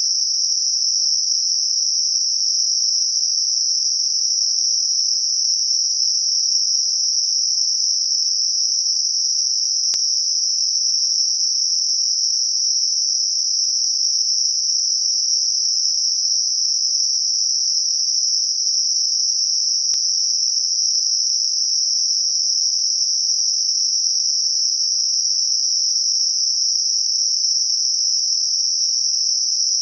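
Synthesized Gaussian narrow-band noise centred on 5.5 kHz, a tinnitus-masking signal: a steady, even, high-pitched hiss with no low or very high content. It holds a constant level without change.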